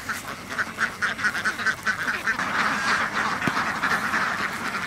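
A large flock of domestic laying ducks quacking, many short calls overlapping into a steady, dense chatter.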